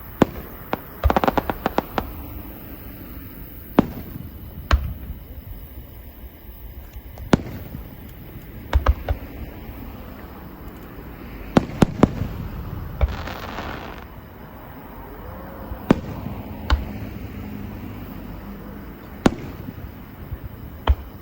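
Fireworks bursting: sharp booms at irregular intervals a second or several apart, a quick run of crackling pops near the start, and a hissing crackle about halfway through.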